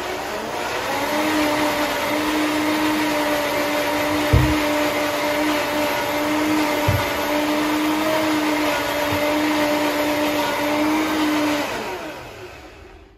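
High-speed countertop blender puréeing leftover salad and liquid into soup. The motor steps up in speed about a second in and then runs steadily, with a few brief low thuds. It winds down near the end.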